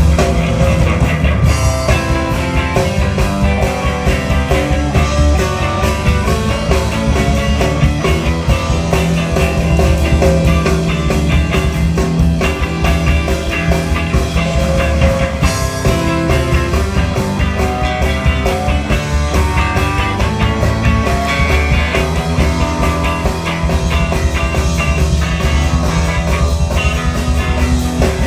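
Live blues-rock band playing an instrumental passage, led by a Stratocaster-style electric guitar picking out notes over a full low-end backing.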